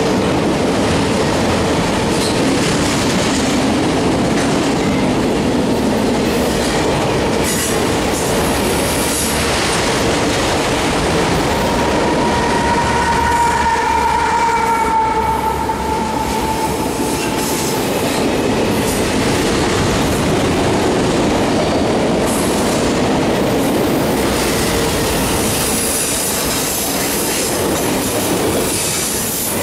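Freight train of auto rack cars rolling past, a steady loud rumble and rattle of wheels on rail. About midway the mid-train distributed-power diesel locomotive passes, adding deeper engine rumble and a steady high whine for several seconds.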